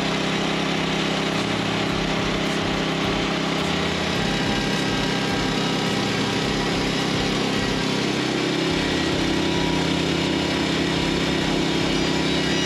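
Woodland Mills HM130 Max portable band sawmill with its engine running steadily. The pitch shifts slightly a little past the middle.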